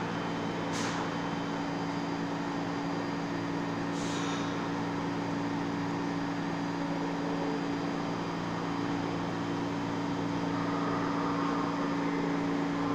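An R46 subway train standing in the station and idling, with a steady low hum. Two short hisses of air come about a second in and about four seconds in.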